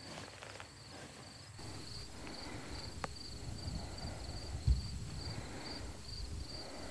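Crickets chirping in a steady, even rhythm of about two high chirps a second, over a low rumble of wind on the microphone. A single short thump about two-thirds of the way through.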